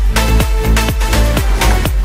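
Electronic dance music with a steady, fast beat and heavy bass.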